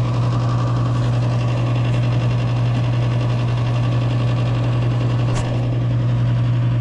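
Gas furnace running with a loud, steady low motor hum, and a single short click about five seconds in.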